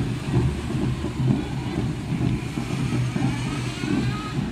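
A motor vehicle's engine running in street traffic, with a faint siren wail rising near the end.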